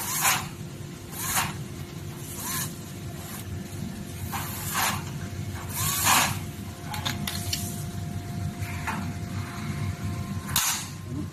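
Cordless drill driving screws into a power-rail joint in short bursts, several in the first half a second or so apart and one more near the end, over a steady hum.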